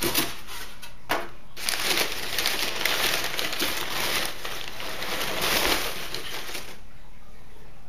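Crumpled newspaper packing rustling and crinkling as a hand digs through it inside a cardboard shipping box. The sound is steady from about a second and a half in and dies down shortly before the end.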